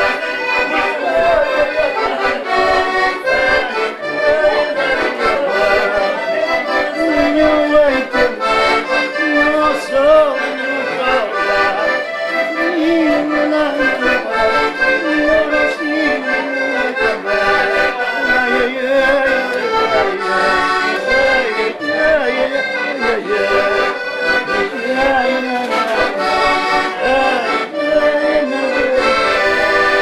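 Two button accordions playing a lively traditional Portuguese folk tune together, with sustained chords under a moving melody.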